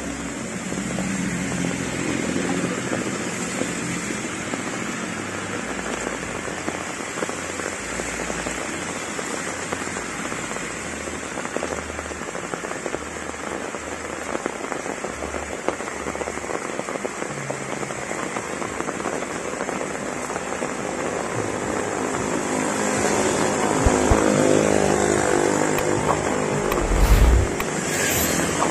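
Heavy rain falling steadily on a wet paved road, with passing cars' tyres hissing through the water. Toward the end a vehicle's engine grows louder as it approaches, and a brief sharp burst sounds just before the end.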